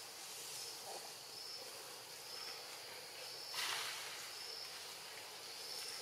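Outdoor insect background: a steady insect hiss with a short, high chirp repeating about once a second. A brief louder burst of noise comes about three and a half seconds in.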